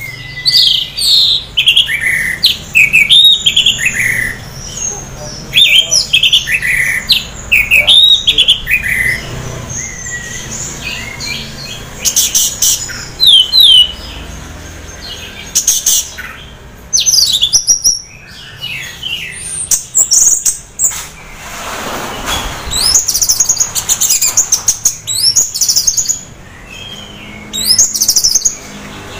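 Orange-headed thrush (anis merah) singing phrase after phrase of quick, chirping, downslurred notes with short pauses between them. The bird is half in breeding condition.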